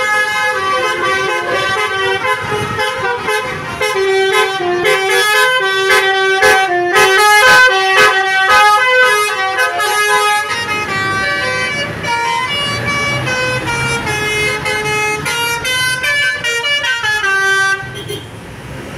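A bus's basuri musical horn plays a quick, stepping melody of many notes. It cuts off suddenly near the end, leaving an engine rumble.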